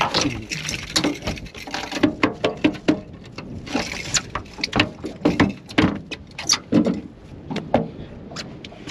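Irregular sharp knocks and slaps on an aluminium Stabicraft boat, about two a second, with a brief splash about four seconds in.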